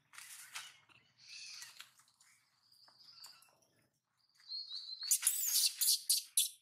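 Baby macaque's high-pitched squeals and cries, in separate bursts at first, then louder and coming thick and fast over the last second and a half, as it struggles in its mother's tight hold.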